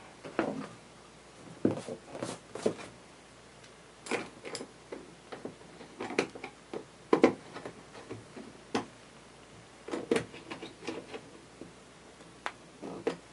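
Scattered light clicks and knocks of hands handling the supply hose and plastic parts at the oil access door of a Predator 3500 inverter generator, at uneven intervals.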